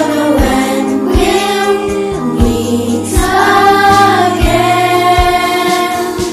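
A children's worship song: voices singing over a band, with bass and a steady drum beat.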